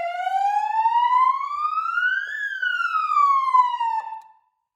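Police siren on the wail setting, very loud: one slow rising sweep and a falling sweep, then it cuts off about four seconds in.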